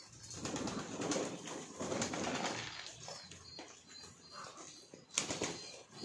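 A flock of domestic pigeons cooing, with bouts of wing-flapping among them; one sudden loud flutter of wings a little after five seconds in.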